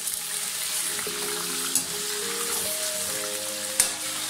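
Chicken pieces deep-frying in hot oil in a karahi, a steady sizzle. Metal tongs and a slotted spoon knock against the pan twice as the pieces are turned, the second knock sharper, near the end. Background music with held notes plays underneath.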